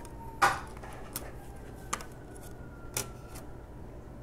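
A few sharp clicks and taps as the iPhone 6 Plus front panel assembly is handled and set down on a wooden table, the loudest about half a second in and three lighter ones over the next few seconds.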